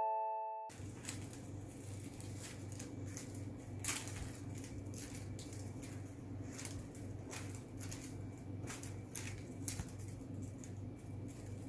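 Soft, irregular taps and rustles of a cat playing with a feather wand toy on carpet tiles, over a low steady hum. A chime jingle dies away in the first second.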